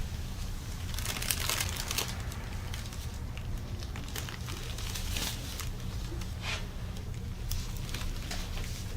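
Irregular crinkling and rustling, coming in short bursts, over a steady low hum.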